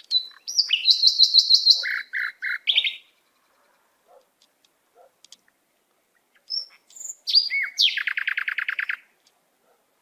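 A songbird singing two phrases made of high whistled notes and rapid trills. The first comes right at the start and lasts about three seconds; the second comes about six and a half seconds in and ends in a fast trill.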